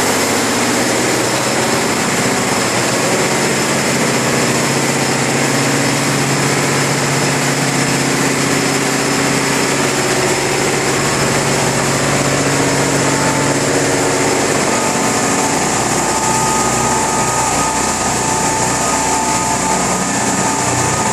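Ship's engine-room machinery running: a loud, steady din with a constant high whine. Another steady tone joins in about halfway through.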